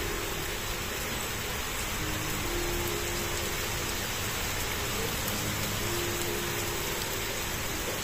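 Steady rain falling on surfaces, an even unbroken hiss. A few faint long held notes sound underneath.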